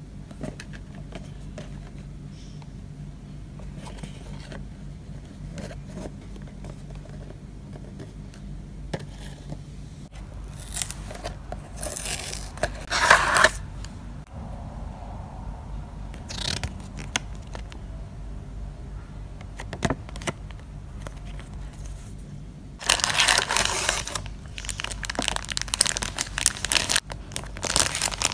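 Hands unboxing a Re-Ment miniature blind box: quiet handling of the cardboard box at first, then loud paper and cardboard rustling about eleven to thirteen seconds in, and from about twenty-three seconds on a long stretch of crinkling plastic bag.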